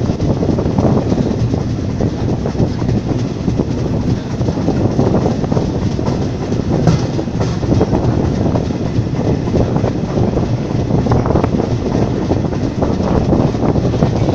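Steam-hauled heritage train, drawn by a Ty42 locomotive, running along the line. Its wheels clatter over the rails and air rushes past an open carriage window. There is one sharp click about halfway through.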